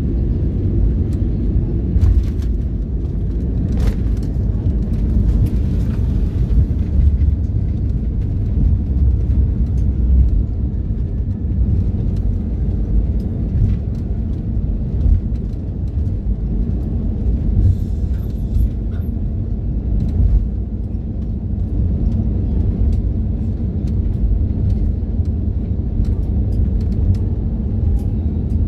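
Steady low rumble inside the cabin of an Airbus A321 airliner as it rolls along the ground after landing: engine and wheel noise, with occasional faint clicks.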